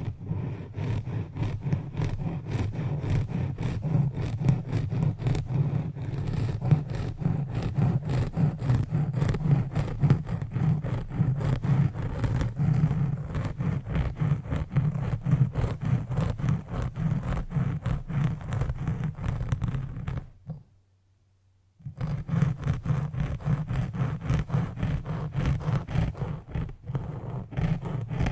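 Rapid, dense scratching and rubbing strokes of an ASMR trigger, stopping for about a second and a half roughly two-thirds of the way through, then starting again.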